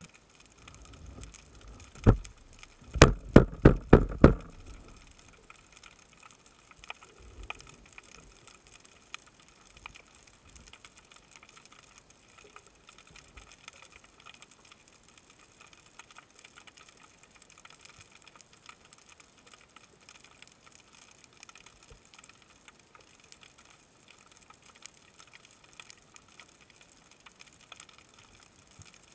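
Underwater ambience: faint, steady crackling and clicking of the sea. About two seconds in there is a single sharp knock, and a second later a quick run of five or six loud knocks.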